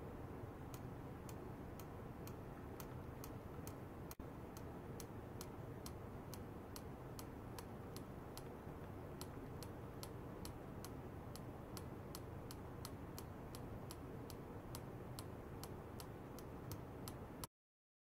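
Even, regular ticking, about two sharp ticks a second, over a steady low hum. It cuts off suddenly near the end.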